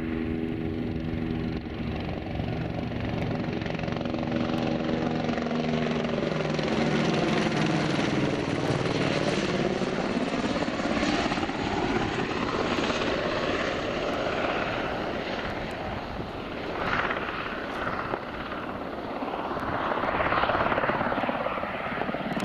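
Light helicopter flying with an underslung load on a long line: a steady rotor and engine hum at first, then the pitch sweeps and shifts as it passes, and the rotor noise swells again near the end as it flies low and close.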